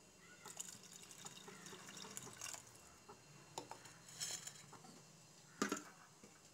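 Mutton soup heating in an open pressure cooker: faint bubbling with scattered small pops and ticks over a low steady hum, and one sharper click about five and a half seconds in.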